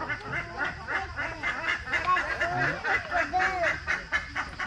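A flock of flamingos honking, many short calls overlapping.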